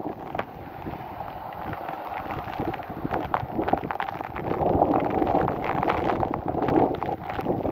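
Torrential thunderstorm rain with many sharp drop hits, and gusting wind buffeting the microphone, the gusts growing louder in the second half.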